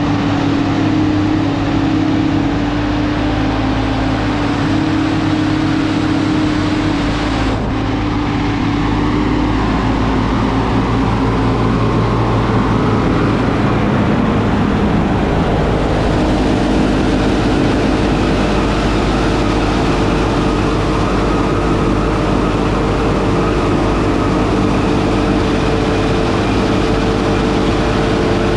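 Silage blower running steadily, its fan blowing chopped corn silage up the chute into a tower silo, along with the steady drone of the tractor engine driving it.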